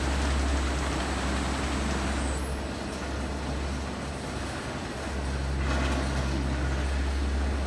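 Palletizing line machinery running with a steady low hum and rolling noise as a pallet of corrugated board sheets travels along the roller conveyor. The low hum eases off for about two seconds midway, then comes back.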